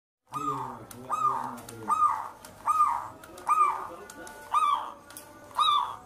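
Zebra dove (perkutut) cooing: a regular series of about seven short, rounded notes, a little under one per second.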